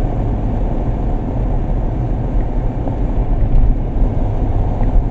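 Steady low road and engine rumble inside the cabin of a van driving along.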